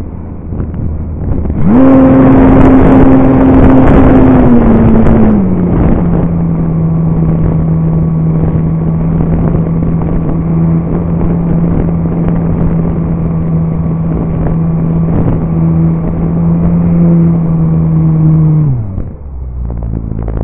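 RC Super Cub model plane's motor and propeller, heard from a camera on the plane. About two seconds in it opens up loud at a high steady pitch, drops to a lower steady pitch a few seconds later, and winds down near the end.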